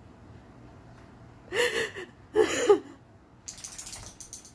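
A woman sobbing: two short crying wails, the first a little over a second and a half in and the second about a second later, then a brief rustle near the end.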